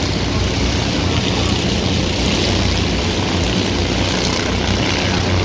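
Stoxkart racing engines running at speed round the oval, a loud, steady drone with no break.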